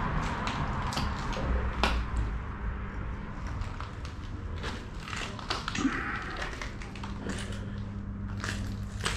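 Footsteps crunching and crackling over rubble and broken glass on a concrete floor: irregular clicks and crackles, over a steady low hum.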